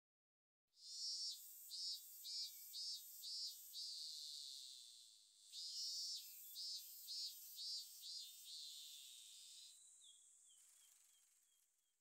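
Robust cicada singing: two phrases, each a run of high, pulsing buzzes about two a second that runs into a long steady buzz. It starts abruptly about a second in, and the second buzz fades away near the end.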